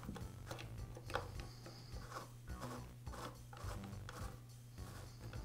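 Faint, irregular metal clicks and scraping of an Allen wrench and needle-nose pliers working the lower drive pulley of a belt sander as it is unscrewed from its reverse-threaded shaft.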